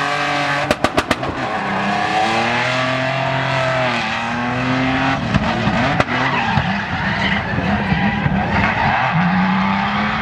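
A drifting SUV's engine revving hard, its pitch swinging up and down, over the hiss and squeal of tyres skidding sideways. A quick run of sharp cracks comes about a second in, and another about six seconds in.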